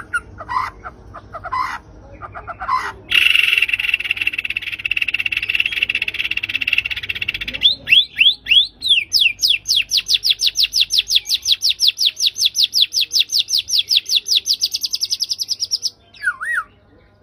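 White-rumped shama (murai batu) singing. A few short whistled notes give way to a harsh buzzing rattle lasting about four seconds. This turns into a fast, even run of repeated sweeping notes, about six a second, for some seven seconds, and a single short note comes near the end.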